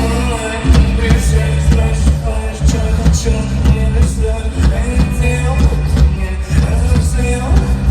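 Live hip-hop concert music played loud over the PA: a track with heavy bass and a steady beat, with a vocal over it.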